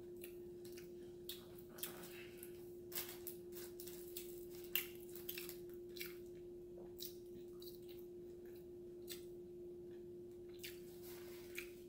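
A person chewing and biting a triple-meat hamburger: many short, irregular mouth clicks and smacks, with a steady low hum underneath.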